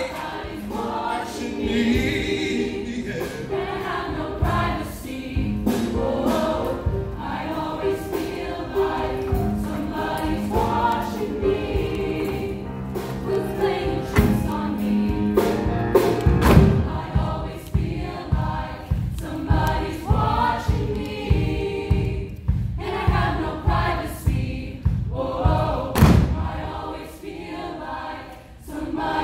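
Mixed choir of men and women singing, with a steady low beat joining about halfway through.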